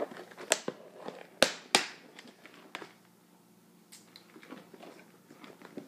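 Small medicine boxes and plastic packets being handled and packed into a kit bag: a few sharp clicks and knocks in the first two seconds, then softer taps and rustling.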